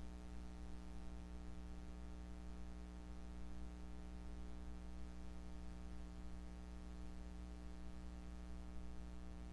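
Steady low electrical hum with a faint hiss underneath, unchanging throughout; no gurgles or growls stand out.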